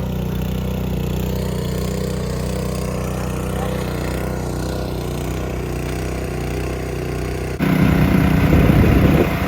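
A small engine running steadily at idle-like speed. About seven and a half seconds in, the sound abruptly becomes louder and rougher.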